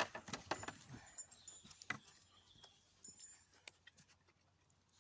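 Dogs eating liver cake: scattered faint clicks and short mouth noises of chewing and licking, fewer and fainter after about three seconds.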